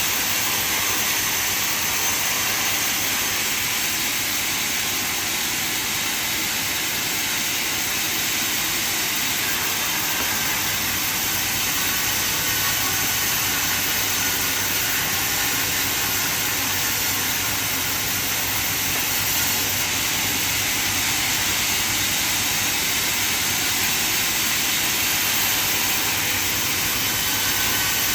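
Band sawmill running steadily: a continuous high hiss of machine and blade noise that holds even throughout.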